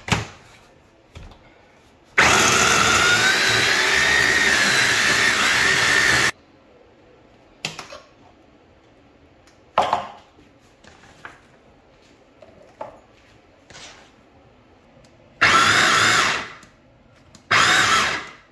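Tefal electric mini chopper's motor running for about four seconds with a wavering whine as it chops onion in its glass bowl, then a few knocks of the bowl and lid. Near the end it runs again in two short pulses.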